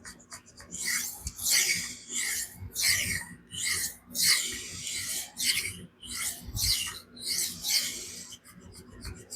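Steel knife blade scraped back and forth across a diamond sharpening stone in quick, even strokes, about one and a half a second. The light strokes shear off the burr raised on the Magnamax steel edge.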